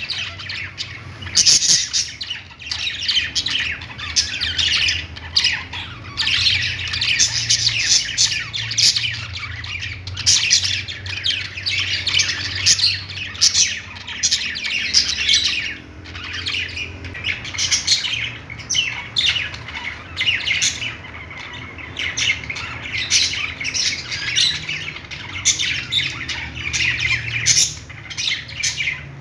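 Several budgies chattering, chirping and squawking without a break, many short overlapping high calls.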